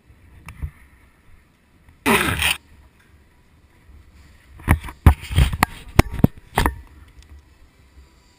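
A half-second rush of noise about two seconds in, then a quick, uneven string of about seven sharp cracks from airsoft guns firing.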